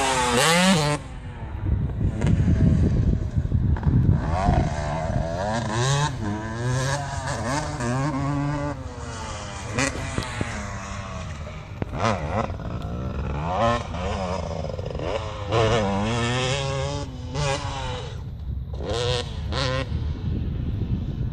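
Motocross dirt bike engines revving around a track, their pitch repeatedly climbing and dropping off. The loudest stretch comes in the first second.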